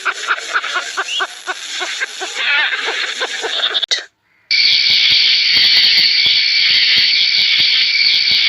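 A rapid series of short, pitched animal calls, about three a second, for about four seconds. It breaks off abruptly, and after a moment's gap a steady, high hissing noise takes over.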